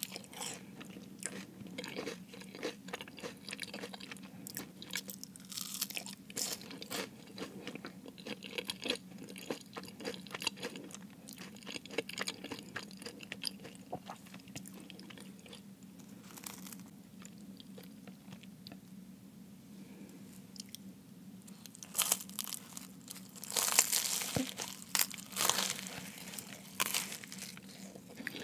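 Close-miked chewing of a Jamaican beef patty, its flaky pastry crust crunching and crackling. It grows quieter for a few seconds, then comes back as louder crunching near the end.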